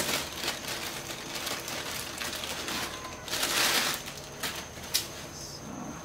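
Clear plastic packaging rustling and crinkling as a folded camping chair in its carry bag is pulled out of it, with a louder rustle about three and a half seconds in and two short clicks near the end.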